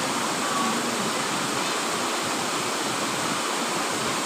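Waterfall: falling water rushing steadily into its pool.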